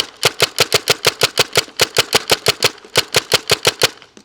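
Tippmann TMC mechanical paintball marker firing semi-automatic in a rapid string of sharp pops, about six shots a second, with a couple of brief pauses.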